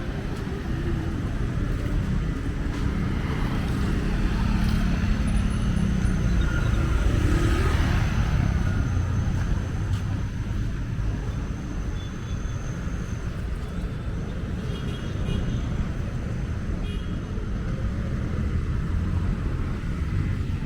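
Traffic noise: a steady low rumble of engines, with one vehicle passing close and loudest about seven to eight seconds in.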